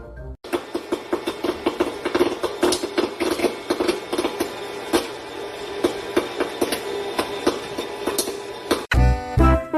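A run of rapid, irregular knocks and clattering over a faint steady hum, with music starting suddenly near the end.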